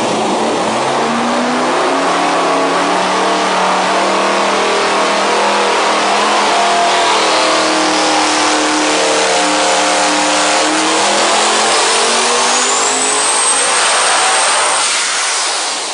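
Devel Sixteen's quad-turbo V16 engine running under load on an engine dyno, its pitch climbing steadily through a dyno pull for about fourteen seconds. A thin turbo whistle rises alongside it from about halfway through and holds high. Near the end the engine comes off the pull and the sound falls away.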